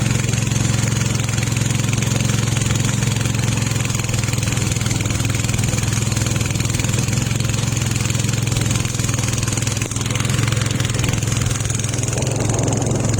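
Fishing boat engine running steadily at a constant speed.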